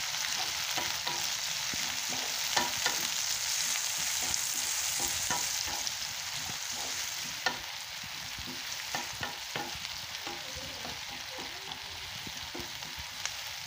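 Chopped onions sizzling in hot oil in a nonstick pan, stirred with a wooden spatula that scrapes and taps against the pan many times. The sizzle eases a little about halfway through.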